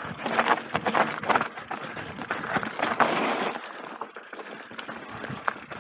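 Mountain bike ridden down a rough dirt and stone singletrack: tyres crunching over the ground and the bike rattling and clicking with every bump, busier in the first half and quieter toward the end.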